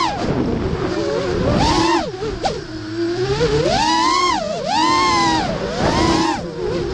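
FPV freestyle quadcopter's brushless motors and propellers whining, the pitch dropping sharply at the start and then surging up and back down several times as the throttle is punched and chopped.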